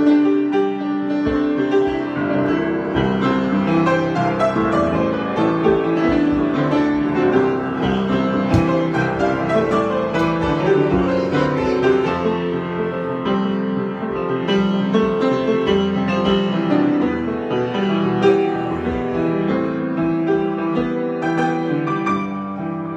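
Piano improvisation: a continuous flow of notes and chords, easing slightly in loudness near the end.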